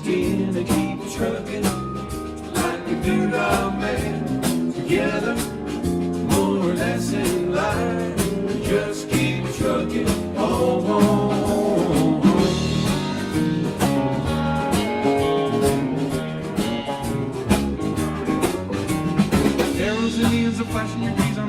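A song with a sung vocal over guitar and a steady drum beat.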